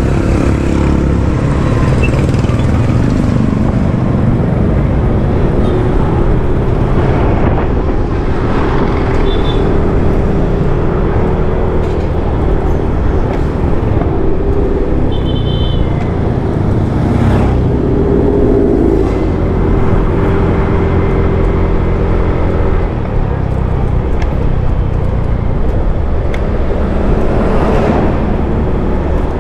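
Steady engine and road noise of a vehicle in motion, with the engine's pitch drifting up and down and two short high tones partway through.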